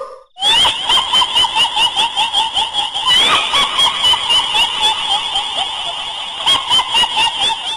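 Kuntilanak ghost-laugh sound effect: a shrill, rapid cackling laugh of short repeated high notes, about three pulses a second.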